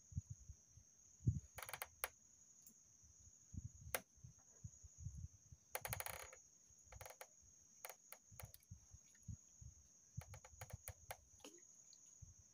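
Steady high-pitched drone of insects, with a few runs of sharp clicking and scattered low knocks and bumps, the loudest bump about a second in.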